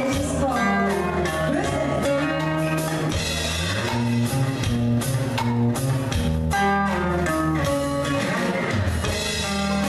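Live band music: a guitar carries an instrumental passage over a light drum-kit beat.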